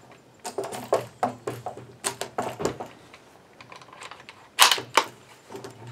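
Mechanical clicks and knocks of a bolt-action rifle and its bipod being handled on a wooden bench: a quick run of small clicks in the first three seconds, then two sharper knocks about four and a half seconds in.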